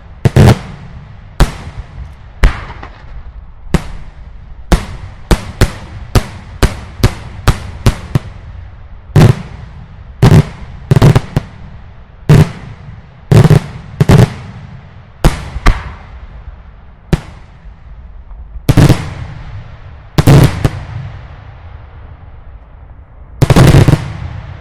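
Daylight fireworks going off: about thirty loud, sharp explosions at irregular intervals, each with a short echoing tail. The bangs come quickest about five to eight seconds in, thin out after the middle, and end in a longer dense cluster of cracks near the end.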